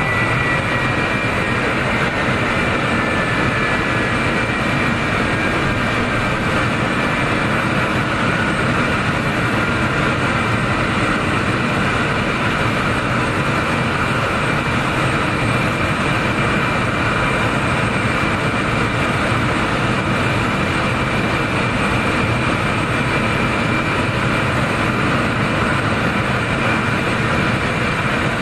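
VC-25A Boeing 747 (Air Force One) with its General Electric CF6 turbofan engines idling on the ground: a steady jet whine and rush. One whine falls slowly in pitch over the first ten seconds, then holds steady.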